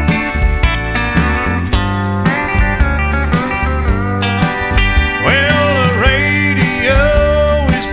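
Country music, instrumental: slide guitar playing over a steady drum beat, with notes that glide in pitch from about five seconds in.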